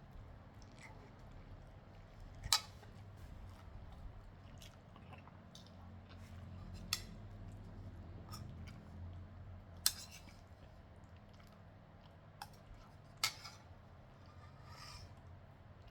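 A person eating stir-fried noodles: quiet chewing, with four sharp clicks of a utensil against the plate spread through.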